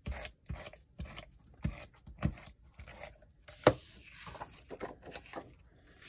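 Sheets of patterned paper and cardstock being handled on a craft table: rustling and sliding, with scattered light taps and one sharper knock a little past halfway.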